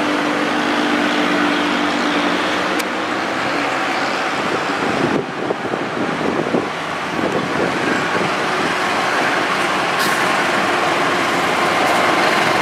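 Diesel locomotive engine running steadily as a passenger train approaches, with the steady rumble of the train over the track growing slightly louder near the end.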